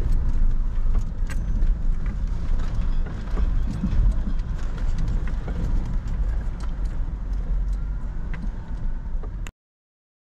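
Vehicle cabin noise while driving down a rough dirt road: a steady low engine and tyre rumble with frequent clicks and knocks from gravel and rattling. It cuts off abruptly near the end.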